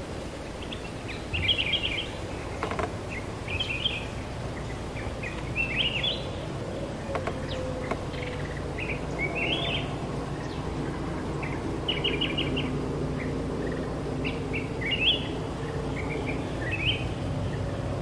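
Black-crested bulbuls singing: short, bright phrases of quick notes, repeated every second or two, some phrases rising.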